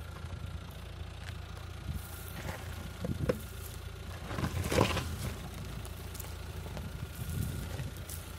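Dacia Duster SUV crawling down a steep rocky track, its engine running at a low idle under the steady sound of stones and gravel crunching beneath the tyres. The crunching is loudest about three and five seconds in.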